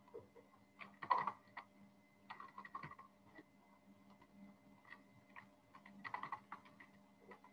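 Computer keyboard being typed on in short bursts of key clicks, with pauses between them, over a faint steady hum.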